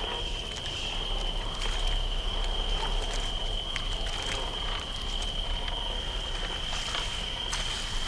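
Night swamp ambience: a steady high cricket trill over a low hum, with scattered soft clicks and crackles.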